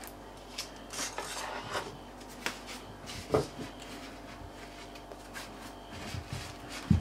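Gloved hand kneading soft butter into dough in a bamboo bowl: irregular rubbing and scraping of hand and dough against the bowl's sides, with a louder knock a little over three seconds in and another near the end.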